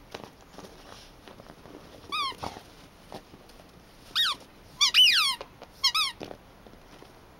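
A dog's squeaky toy shaped like a little black shoe, squeezed in a black Labrador's jaws as he chews it. It gives a short squeak about two seconds in, then a run of louder squeaks, some longer and falling in pitch, between about four and six seconds in.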